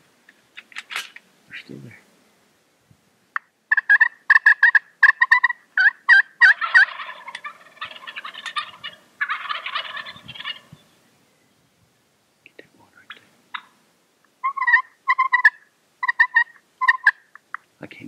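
Rio Grande wild turkeys gobbling: runs of rapid gobbling notes from a few seconds in, piling up and overlapping in the middle, then another run of gobbles near the end.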